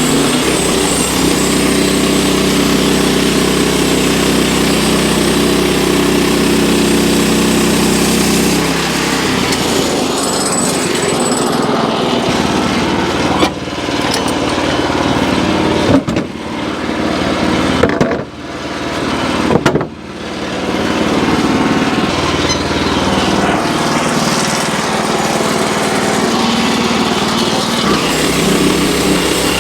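Gas engine running steadily, changing its note about eight seconds in. Through the middle there are a few sharp knocks and brief dips in the sound, then it settles back to steady running.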